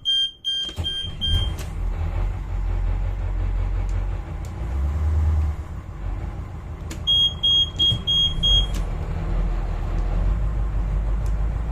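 Caterpillar marine diesel engines being started. A helm warning alarm beeps in short pulses as the first engine fires and settles into a low, steady idle. About seven seconds in the beeping comes again as the second engine starts, and the low rumble grows fuller.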